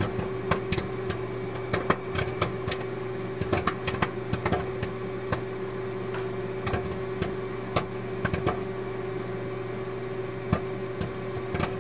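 Popcorn popping: many quick, irregular pops, a few of them louder, over a steady hum.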